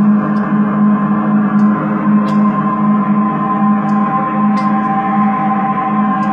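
Seven-string electric bass played through delay effects: layered, sustained ringing notes that pulse gently as the repeats overlap, with a new higher note fading in about four seconds in. Faint clicks sound every second or two.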